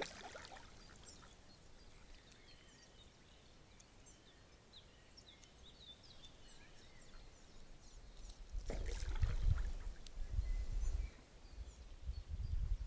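A mallard splashing in pond water, followed by faint high chirps of small birds. About nine seconds in, loud low rumbling and knocking on the trail camera itself as it is jostled, dying away and then returning briefly near the end.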